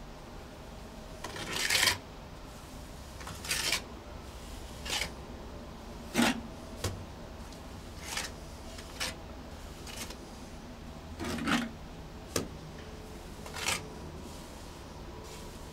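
A small hand trowel scraping and spreading wet cement mortar onto a concrete pond wall: about nine irregular scrapes, each a second or less, with the longest and loudest near the start.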